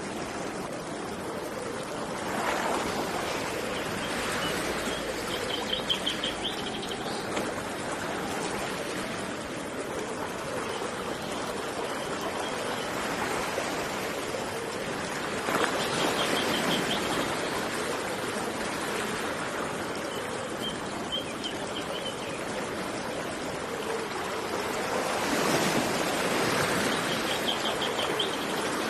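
Steady rush of flowing water from a river and sea surf, swelling three times about ten seconds apart. A small bird's short, rapid trill repeats several times over it.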